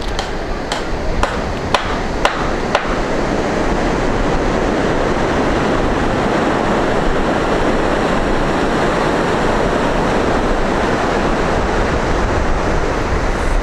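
Steady rushing noise of wind and sea surf on an open beach. About five sharp clicks, roughly half a second apart, come in the first three seconds.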